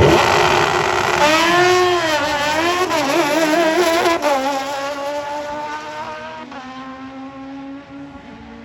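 Drag racing motorcycle launching and accelerating hard down the strip. Its engine pitch climbs and drops several times with quick gear changes, then holds steadier and fades as the bike moves away.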